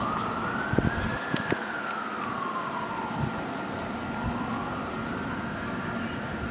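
Fire engine siren on a 2023 Rosenbauer Commander pumper, sounding a slow wail that rises, falls and rises again, growing fainter as the truck drives away.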